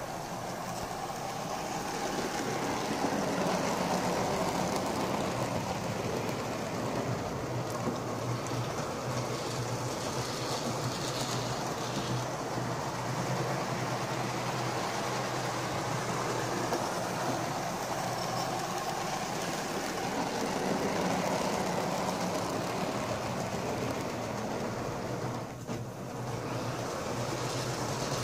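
Hornby OO gauge model of a BR Class 9F 2-10-0 steam locomotive running on track: a steady whir of its motor and gears with the wheels rattling over the rails. The sound swells and eases as the locomotive moves nearer and farther, with a brief dip about 25 seconds in.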